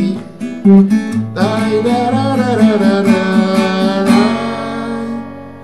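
A man sings a wordless 'ai-da-ra-ra-ra' refrain over a strummed acoustic guitar. The voice stops about four seconds in, and the last guitar chord rings on and fades.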